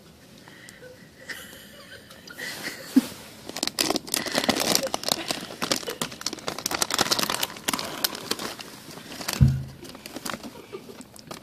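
Crinkly plastic snack bag of Cheetos Puffs rustling and crackling as a small hand rummages in it, with a brief low thump about nine seconds in.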